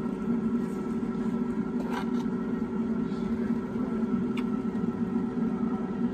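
Air fryer running with a steady hum, and a couple of short crunching clicks, about two seconds in and again past four seconds, from biting into crispy Hot Cheetos-coated fried chicken.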